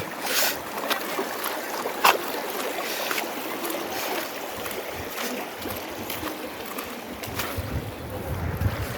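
Flowing stream water, a steady rushing hiss, with a few sharp clicks and wind buffeting the microphone near the end.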